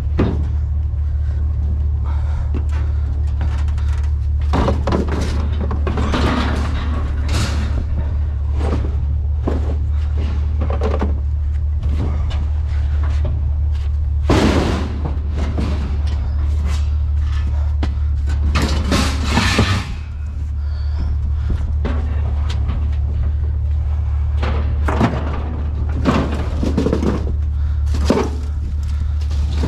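Scrap items being handled and loaded onto a pickup truck's back, with irregular clanks, knocks and scrapes over a steady low rumble.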